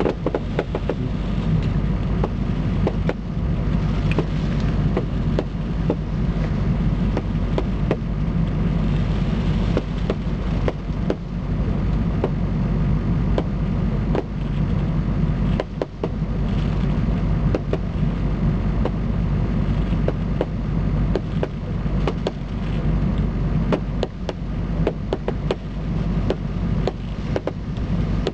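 Fireworks display: a rapid, continuous run of bangs and crackles from launching and bursting shells, over a steady low rumble.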